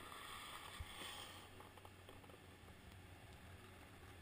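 Faint, even hiss of skis gliding over groomed snow, with one soft knock just under a second in.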